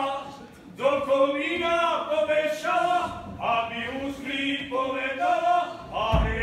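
A man's voice chanting in short sung phrases with held notes, with a low thump near the end.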